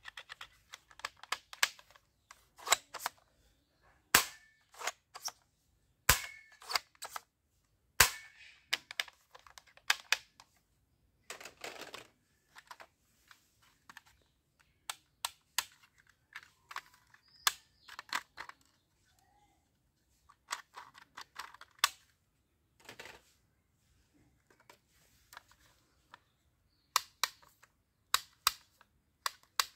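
Hard plastic toy guns clicking and clacking as they are handled: sharp, irregular clicks from triggers and parts with a few louder snaps, and a short rattling stretch near the middle.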